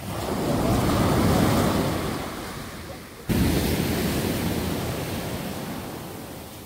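Sea surf washing onto the beach, swelling and then fading away twice, the second wash starting suddenly about three seconds in.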